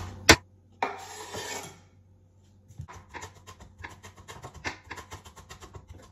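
Chef's knife mincing red onion on a wooden cutting board. A sharp knock just after the start is followed by the blade scraping across the board, then quick, light chops from about three seconds in.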